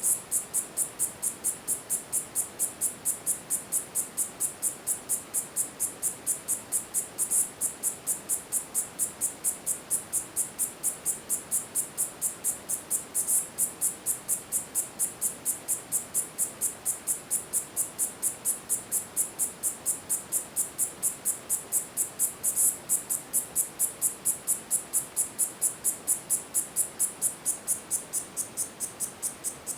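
Korean grass cicada (Tettigetta isshikii) calling: a steady train of high-pitched ticking pulses, about three a second. A few louder clicks stand out at about 7, 13 and 22 seconds in.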